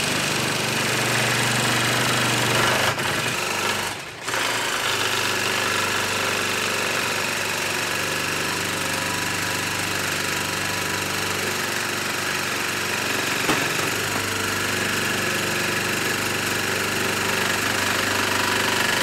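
Old-model blue Ryobi cordless jigsaw running continuously as its blade saws slowly through a wooden board, briefly dropping out about four seconds in. The cut is a struggle: its 1.5 Ah battery can't keep up and drains to nothing.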